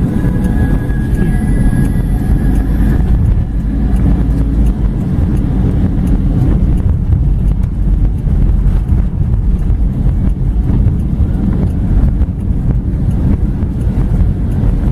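Car cabin noise while driving through a storm on a wet road: a loud, steady low rumble of the car and its tyres on the wet tarmac, with the storm outside.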